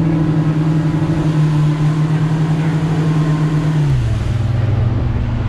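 Twin 60 hp outboard motors driving a speedboat at speed: a steady engine note that drops to a lower pitch about four seconds in.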